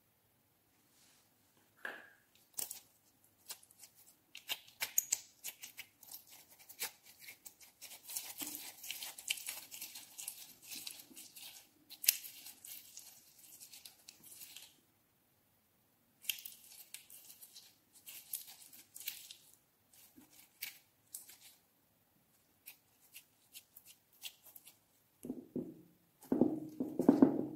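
Slime being squeezed and mixed by hand in a glass dish: sticky crackling and popping clicks, then louder, lower wet squelches near the end as it is pressed down.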